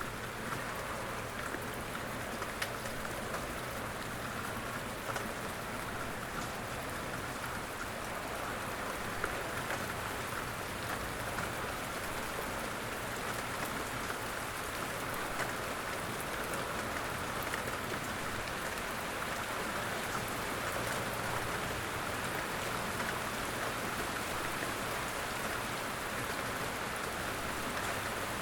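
Steady rain falling on a surface: an even hiss with scattered faint drop ticks.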